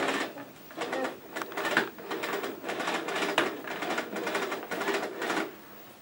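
Power cord being pulled out of a canister vacuum cleaner's retractable cord reel: a fast, uneven run of clicks and rattles that stops about half a second before the end.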